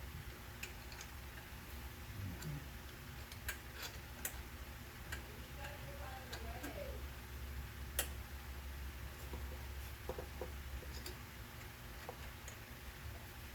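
Irregular light clicks and taps from small parts of a rear-view camera and monitor mount being handled and positioned, over a steady low hum.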